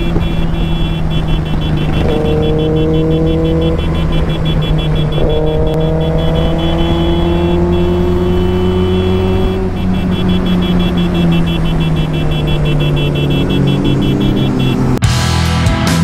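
Benelli TRK 502's parallel-twin engine running at highway cruising speed, heard from a helmet mount over wind noise; the engine note sinks in pitch over the last few seconds as the bike eases off. About a second before the end, music cuts in abruptly.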